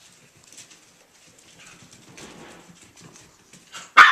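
Jack Russell Terrier puppies' claws pattering and skittering on a hard floor as they run about, then a single sharp bark near the end.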